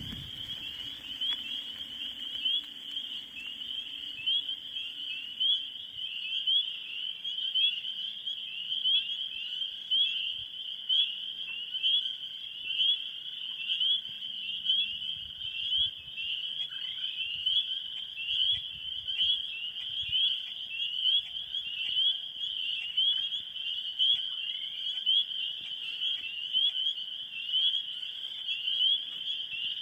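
Swamp frog chorus: many frogs calling together in a dense, high-pitched chirping, with louder pulses about once a second.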